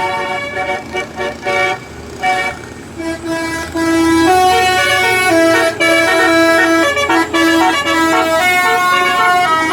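Bus's multi-tone 'telolet' musical horn playing a tune: short toots in the first three seconds, then longer, louder held notes stepping up and down in pitch.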